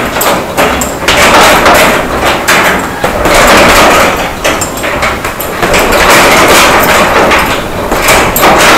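Boxing gloves hitting a hanging heavy bag in a fast, continuous run of punches: loud, sharp thuds several a second.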